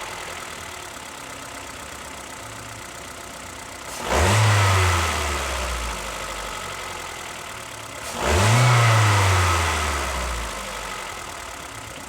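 Ford Sigma four-cylinder engine idling with its alternator belt removed, revved twice. Each rev rises quickly and settles back over about two seconds. The engine runs without the rattling, grinding noise it made with the belt on, which points to a belt-driven accessory; the mechanic traces it to a water pump with a worn, loose bearing.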